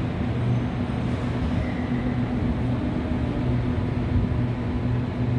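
Sydney double-deck electric suburban train at a station platform, giving a steady low hum over a rumble.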